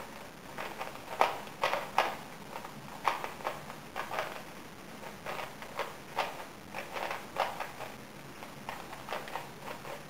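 A DIY Type C-II 3x3 speedcube being turned fast by hand: quick, irregular plastic clicks and clacks as the layers snap round, in flurries with brief pauses between.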